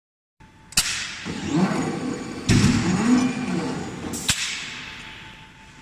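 Electric screw forging press working: sharp bangs about a second in and just past four seconds, with a heavier thud around two and a half seconds. A wavering hum from the drive runs between the blows and fades near the end.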